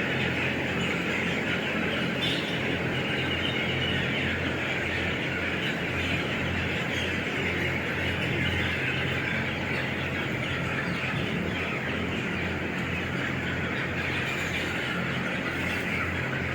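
A dense, continuous chorus of many chickens chirping and peeping in a poultry shed. A steady low mechanical hum runs underneath.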